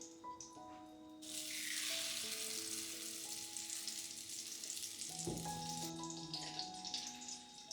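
Food sizzling in hot oil in a frying pan. The sizzle starts suddenly about a second in, as if food has just been put into the pan, and turns to scattered crackling near the end.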